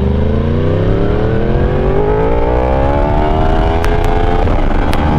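Yamaha YZF-R1's 998 cc crossplane inline-four engine accelerating under load, its exhaust note rising steadily in pitch, then dropping slightly as it shifts up a gear about four seconds in and beginning to climb again.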